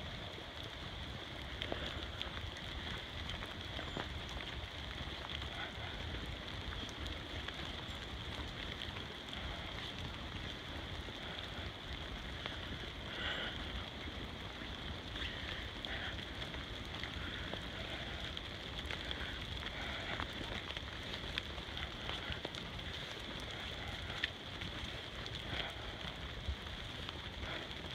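Steady rain falling through forest, with footsteps on a wet, muddy trail and a few sharp ticks.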